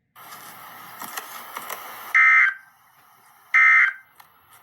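Emergency Alert System end-of-message data bursts: two short, loud, screechy bursts of digital tone about a second and a half apart, marking the end of the alert. Before them comes about two seconds of crackly hiss.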